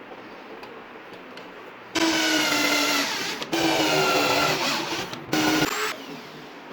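Electric power tool motor running in three bursts with short breaks between them, its whine holding a steady pitch that sags slightly while it runs.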